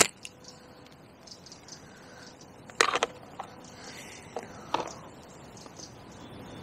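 A catapult's elastic snaps once as a pouch of maggots is fired out as loose feed. A few short, harsh sounds follow about three and five seconds later.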